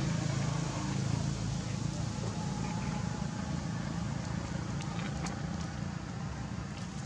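Outdoor background noise: a steady low rumble with faint, indistinct voices, and a couple of small clicks about five seconds in.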